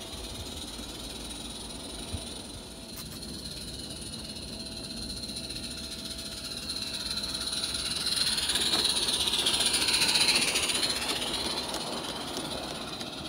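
Garden-railway locomotive and coaches running along the track, growing louder as the train approaches and passes close by about ten seconds in, then fading.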